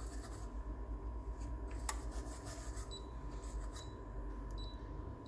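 Test probes handled on a workbench: one sharp click about two seconds in and a few faint ticks later, over a low steady hum and a faint steady whine.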